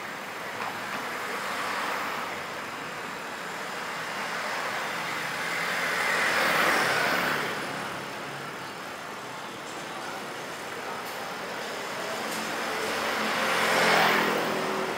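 Street traffic: two vehicles pass close by, one about six to seven seconds in and one near the end, each building up and fading away over a steady background of traffic noise.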